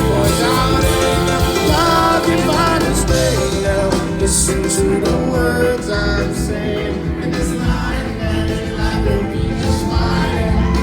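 Live rock band playing an instrumental passage, bass and drums under a lead line that slides in pitch.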